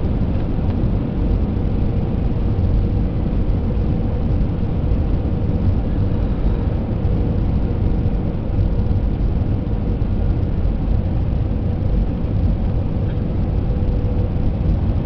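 Jet airliner's turbofan engines heard from inside the cabin: a steady, loud rumble with a faint steady hum running through it.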